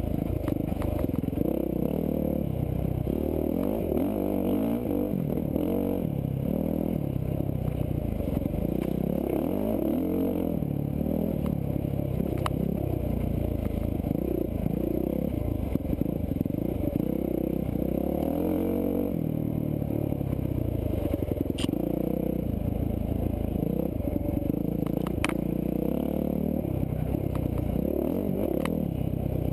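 Dirt bike engine on the move over rough ground, its revs rising and falling continuously, sounding muffled and heavy on the low end, with rattling and a few sharp clicks.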